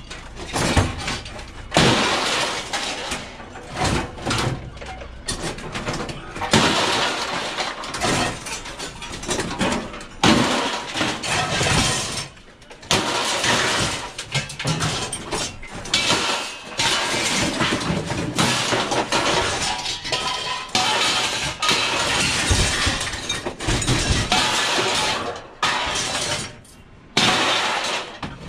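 Scrap steel being thrown onto a pile, pieces crashing and clattering one after another in a dense, irregular run.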